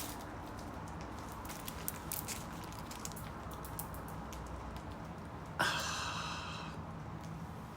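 Plastic packaging crinkling and crackling in the hands as a parcel is handled, with a short ripping sound about five and a half seconds in.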